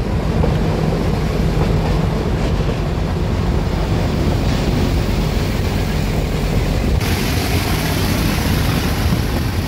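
Nilgiri Mountain Railway train running on its metre-gauge track: a steady rumble of the carriages, heard from an open window with wind buffeting the microphone. The noise turns brighter and hissier about seven seconds in.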